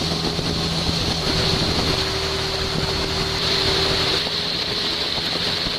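A river longboat's engine running steadily at speed, with water rushing along the hull and wind on the microphone.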